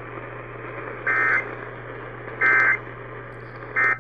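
Emergency Alert System end-of-message data bursts over AM radio: three short buzzing digital tone bursts about a second apart over steady broadcast static and hum, marking the end of the relayed severe thunderstorm alert. The static cuts off right after the last burst.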